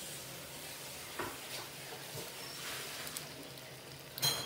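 A faint steady hiss with a few light clicks, then one sharp clink that rings briefly near the end.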